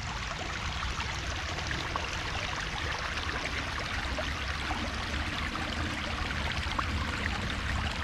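Shallow creek water trickling steadily through a jam of sticks and leaf litter.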